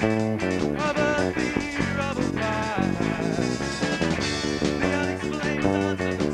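A rock band playing a song live in a rough, poorly balanced recording: electric guitars and bass with a steady beat.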